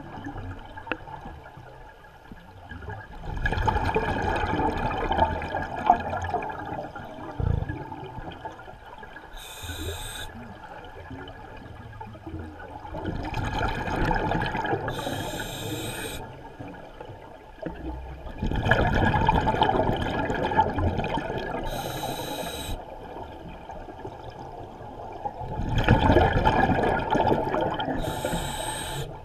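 Scuba diver breathing through a regulator underwater: about every seven seconds a loud burst of exhaled bubbles lasting a few seconds, with a short hiss of the regulator, four times in all. Heard from inside the camera's waterproof housing.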